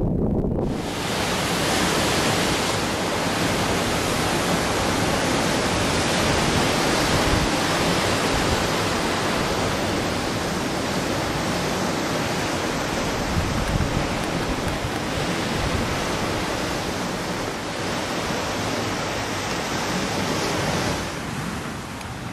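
Steady, even rushing noise of wind and ocean, with no distinct splashes or calls in it; it softens slightly near the end.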